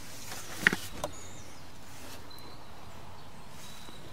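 Quiet outdoor background with two sharp clicks about a second in, then a few faint, short, high bird chirps.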